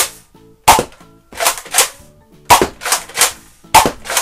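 Nerf Rival Artemis, a spring-powered pump-action blaster, firing foam balls: three loud sharp shots a bit over a second apart, each followed by two plastic clacks as the grip is pumped back and forward to prime the next shot.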